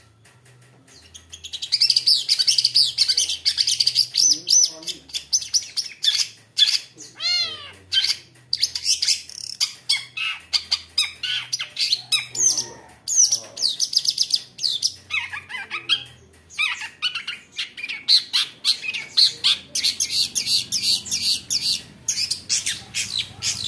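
Long-tailed shrike (cendet) singing in full voice: a rapid, continuous stream of high chattering and squawking notes packed with mimicked calls. It starts about a second in and goes on with only brief breaks.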